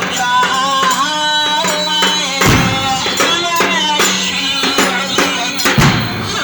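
A male radood chanting a melismatic Muharram latmiya (Shia mourning chant), his voice sliding and ornamenting over a steady low drone, with two deep percussive thumps about three seconds apart.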